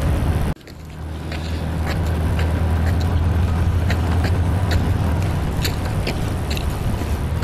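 Motor scooter engine running steadily with a low hum, heard while riding, with scattered sharp clicks. Background music cuts off about half a second in.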